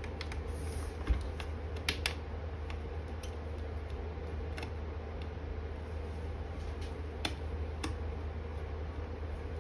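Scattered light clicks and taps of a laptop's small plastic and metal parts being handled during reassembly: a sharper click about a second in, two close together near two seconds, and a couple more later. A steady low hum runs underneath.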